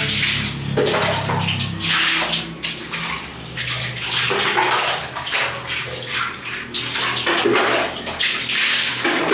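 Water splashing and swishing on a wet tiled bathroom floor in repeated swells as the floor is scrubbed with a brush and rinsed.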